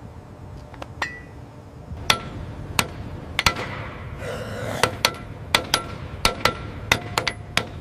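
Metal struck with a hand tool: about a dozen sharp, ringing taps at irregular intervals, with a brief hiss about four seconds in.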